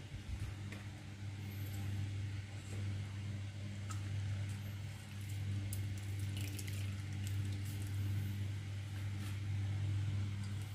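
Wet grated coconut squelching and dripping in a steel bowl as it is squeezed by hand to press out coconut milk, with short wet splashes scattered through. Under it runs a steady low hum, the loudest sound.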